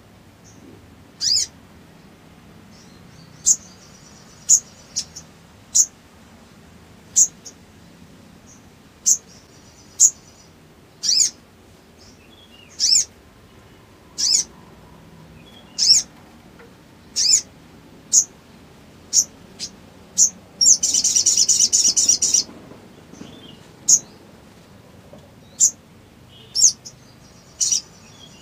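Male olive-backed sunbird calling: sharp, very high single chirps about once a second, with a loud rapid buzzing trill lasting about two seconds roughly three quarters of the way through.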